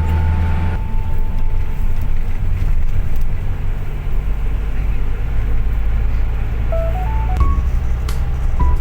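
A moving road vehicle's steady engine and road rumble. A held high tone sounds over it during the first second or so, and a few short tones at different pitches come near the end.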